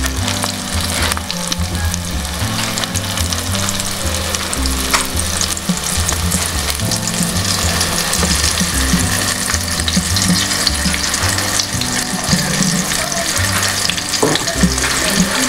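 Breaded chicken drumsticks deep-frying in hot oil in a pot: a steady, dense sizzle and crackle.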